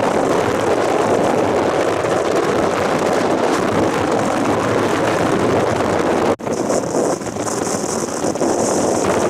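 Strong gale wind buffeting the microphone: a loud, continuous rushing noise. It breaks off for an instant about six seconds in, then resumes with an added higher hiss.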